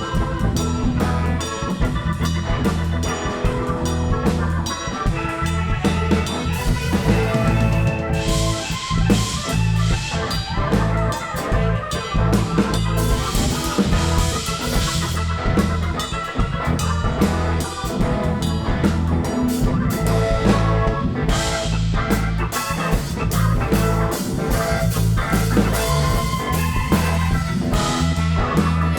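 Live band playing an instrumental break: a drum kit keeps a steady beat under bass and guitar, with cymbal crashes swelling twice in the middle.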